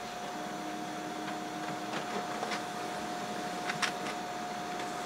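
Brother MFC-L8900CDW colour laser printer running while it makes a copy. It gives a steady whine, joined just after the start by a lower hum, with several sharp clicks along the way.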